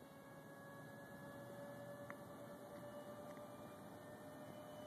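Faint, steady whine of a distant RC model F/A-18 jet in flight, its pitch rising slightly.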